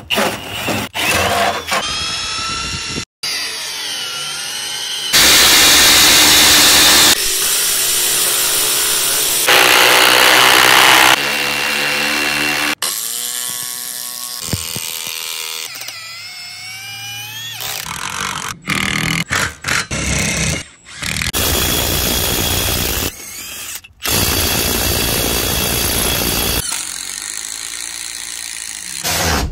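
A run of cordless power tool clips cut together: a cordless drill running a hole saw through wood, and cordless impact drivers driving long screws into timber. The clips change abruptly, with motor whines rising in pitch and loud stretches of impact hammering.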